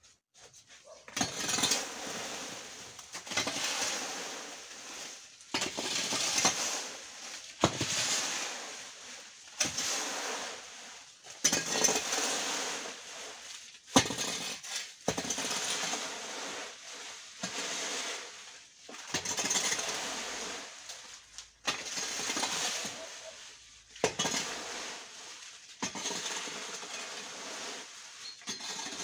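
Garden rake dragging dry fallen leaves over a concrete yard, one stroke about every two seconds: rustling leaves with the tines scraping and clinking on the concrete.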